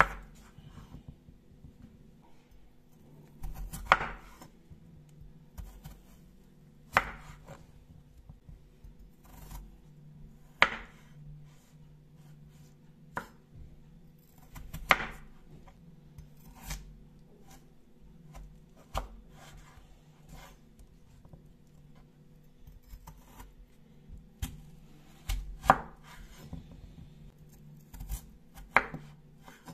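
Kitchen knife cutting peeled raw potatoes into chunks on a wooden cutting board: a soft slicing sound through the potato, then a sharp knock of the blade on the board, about every two to four seconds.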